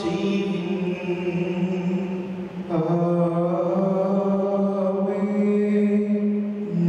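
Slow liturgical chant during the Mass, made of long held notes. The note changes about three seconds in and again near the end.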